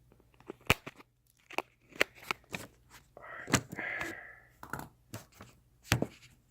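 Handling noise from something being set up on a stand: a series of sharp clicks and knocks, with a rustling scrape about three seconds in.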